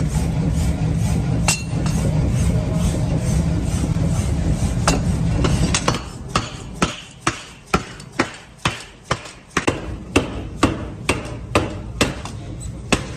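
Hammer blows on metal during forging. For about the first six seconds they come under a steady low machine drone, with quick light knocks and a couple of heavy strikes. Then the drone stops and ringing blows follow about twice a second.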